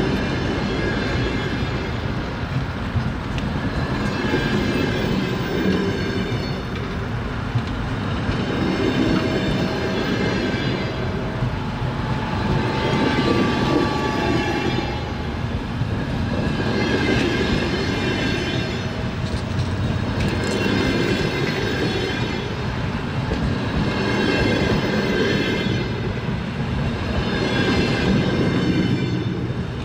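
Train wheels clattering over the rails as the carriages roll along, a steady rumble that swells and fades every few seconds.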